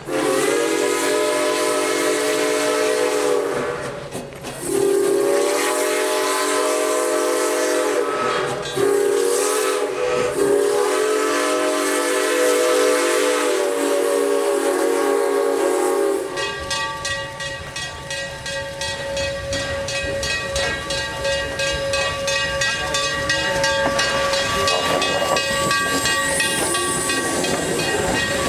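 Canadian National 7470's steam whistle blowing a chime-like chord in four blasts, long, long, short, long, the pattern of the grade-crossing signal. After the whistle the steam locomotive rolls in close by, with steam hissing and a regular clicking from the running gear.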